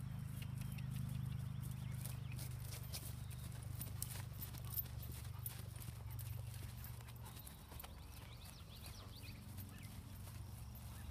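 Hoofbeats of a Rocky Mountain Horse gelding moving steadily across pasture grass under a rider, heard as scattered sharp clicks. A steady low rumble runs underneath and weakens about two-thirds of the way through.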